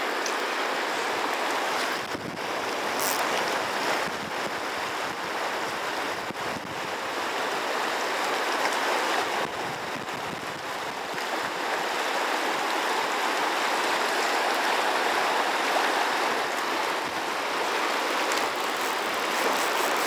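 Fast river current running over a rocky bed: a steady rush of flowing water.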